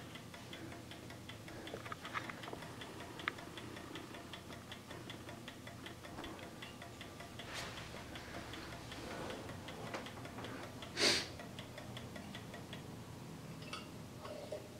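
Key-wound Kieninger mechanical clock movement ticking steadily and faintly on its own, its escapement running again after the misaligned suspension was set right. There is a brief rustling noise about eleven seconds in, and a few light knocks near the end as the movement is handled.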